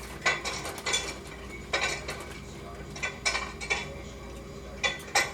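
Dishes and cutlery clattering in an open dishwasher as a baby handles them: a string of separate clinks and clanks, several in quick pairs.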